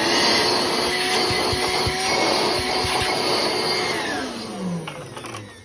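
RYOBI 18V cordless bucket-top wet/dry vac motor running with a steady whine, just after being switched on. About four seconds in it is switched off, and the pitch falls as the motor winds down.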